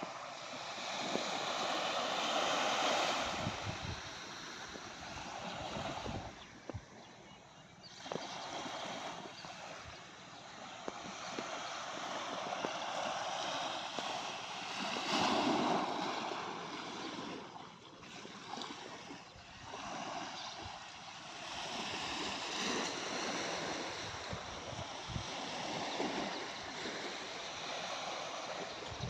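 Sea waves washing onto the shore, the rush of surf swelling and falling away every several seconds.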